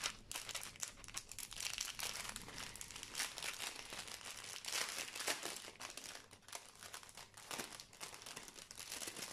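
Clear plastic bags of diamond-painting drills crinkling as they are handled, with irregular rustles and crackles.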